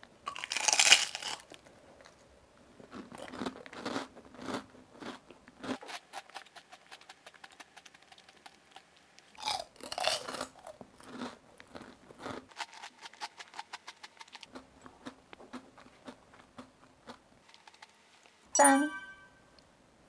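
Close-up crunching and chewing of crisp food: a loud crunchy bite about a second in, then rapid chewing clicks with another burst of crunching around ten seconds in. A brief sharp sound comes near the end.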